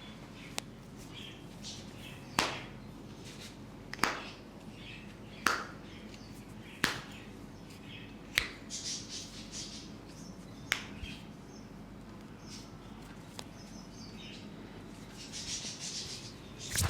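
A series of sharp single clicks or snaps, about every one and a half seconds at first and sparser later, with faint high chirps between them.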